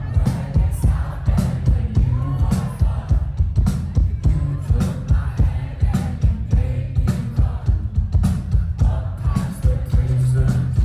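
Live band playing in concert: heavy bass, a steady drum beat and a male singer's vocals through the PA.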